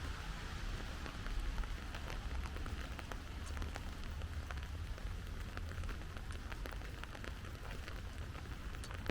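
Steady rain falling, with many separate drops ticking and pattering close by over a continuous hiss, and a steady low rumble underneath.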